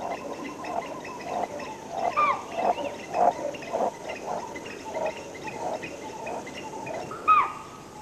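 Male leopard sawing: a run of rasping grunts, about two a second, the call that tells rival males and possible mates he is around. Spotted deer (chital) answer twice, about two seconds in and near the end, with a sharp whistling alarm call.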